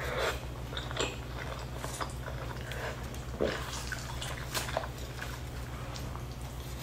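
Close-miked hand-eating sounds: wet chewing and lip smacking on saucy chicken, with small clicks as fingers tear meat and pick at rice, over a steady low hum.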